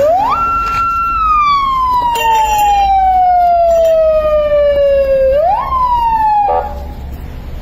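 Siren wail: the tone shoots up and holds for about a second, then slides slowly down in pitch for about four seconds. It swoops up once more and cuts off suddenly.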